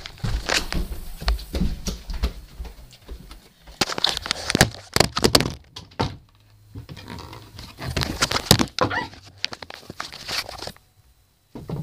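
Irregular thumps, knocks and rustling of someone climbing up into an attic.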